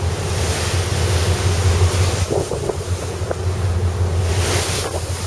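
Wind buffeting the microphone on the open deck of the ferry Toshima, in gusts, over the ship's steady low engine drone and the rush of the sea against the hull.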